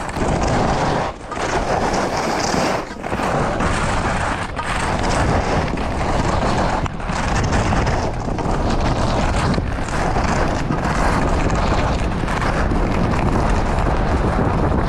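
Wind rushing over the microphone during a fast downhill ski run, mixed with the skis scraping over packed, groomed snow. The noise is loud and steady, with a few brief dips.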